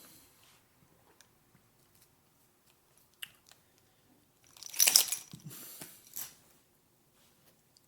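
A person taking a loud slurping sip of energy drink about halfway through, followed by swallowing and a short click as the drink is lowered.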